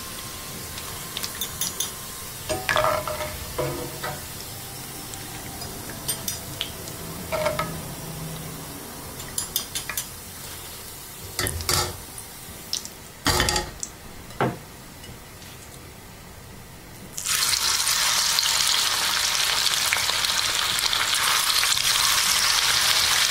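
Deep-frying chicken: the oil bubbles quietly while a wire spider strainer lifts fried pieces out of a cast-iron kadai, with scattered metal clinks and scrapes. About three-quarters of the way in, fresh marinated chicken pieces go into the hot oil and a loud, steady sizzle starts up.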